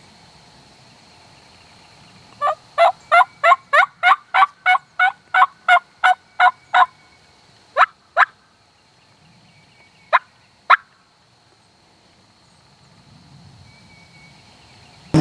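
Turkey yelping: a quick, even run of about fourteen sharp yelps at roughly three a second, followed by two pairs of single yelps.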